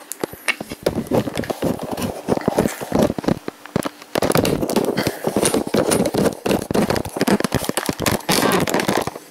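Camera handling noise: a dense run of irregular knocks, clicks and rubbing on the microphone as the camera is carried and fitted back onto a tripod, getting busier and louder about halfway through.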